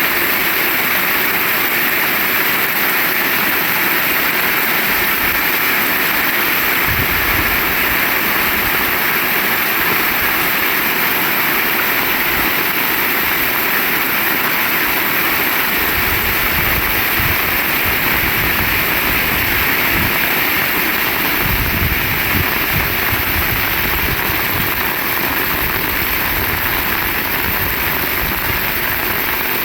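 Heavy rain falling steadily, an even unbroken hiss, with a faint low rumble coming and going.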